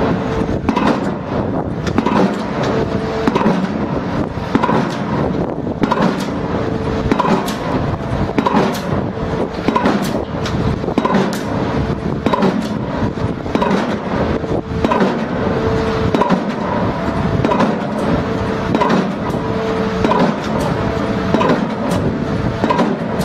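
Hydraulic impact pile-driving hammer striking the top of a pile in a steady rhythm, a little under one blow a second, over a continuous mechanical hum from the running rig.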